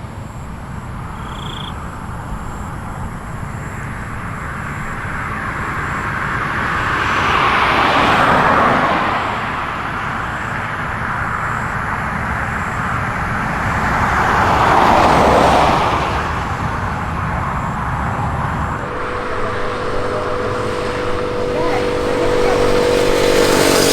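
Two road vehicles pass by over a steady background rumble, one about eight seconds in and one about fifteen seconds in, each swelling and fading over a few seconds. In the last few seconds a steady engine hum with a clear pitch sets in.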